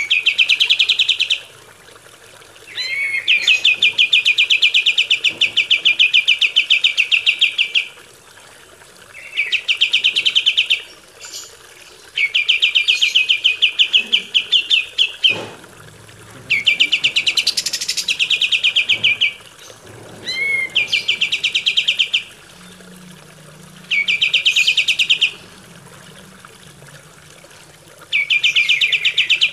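Kapas tembak, a bulbul, singing a rapid, high rattling trill in repeated phrases of one to five seconds, about eight in all, several opening with a short upward swoop.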